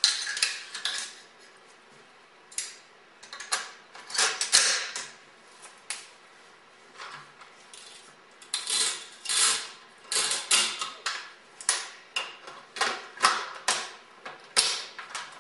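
AR-15 rifle being reassembled by hand after a field strip: irregular metallic clicks, clacks and scrapes as its parts are fitted and seated, coming in quick clusters, busier in the second half.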